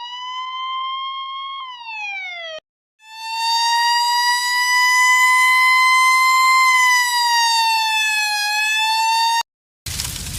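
Siren-like alarm wail of an emergency alert: a tone with strong overtones glides up, holds, then falls and cuts off suddenly a little over two seconds in. After a short gap a louder, longer wail holds steady, sags and rises again, then stops abruptly, and a burst of hissing noise follows near the end.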